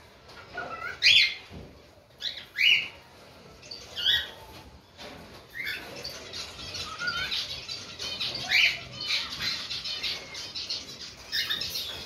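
A cockatiel calling: about six short, sharp chirps spaced a second or more apart, each sweeping up and down in pitch, with quieter rapid chatter between them near the end. The first chirp is the loudest.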